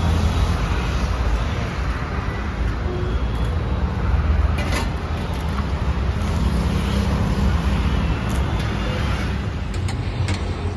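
Steady low rumble of background traffic noise, with a few short clicks.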